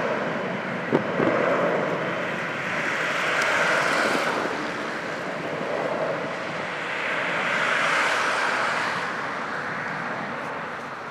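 Highway traffic passing in swells of tyre and engine noise, one vehicle after another, with a distant jet airliner running on the runway beneath it. A sharp knock about a second in.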